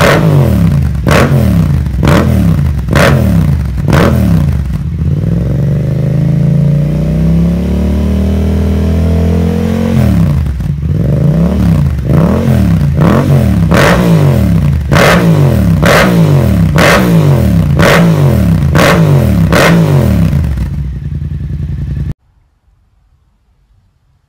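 2015 Yamaha MT-07's parallel-twin engine through a Yoshimura R77 slip-on exhaust with carbon end cap, blipped repeatedly about once a second. It is then held at a steady high rev, around 4,000 rpm, for about five seconds, its pitch creeping up, before dropping sharply and blipping again toward 5,000 rpm. It drops back near the end and the sound cuts off abruptly.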